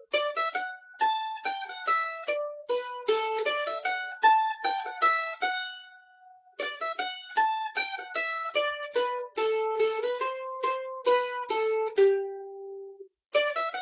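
Mandolin playing an old-time fiddle tune, quick picked single notes in two phrases with a short break between them, the second ending on a held low note.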